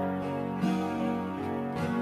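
Slow, soft instrumental background music with held notes that change about every second.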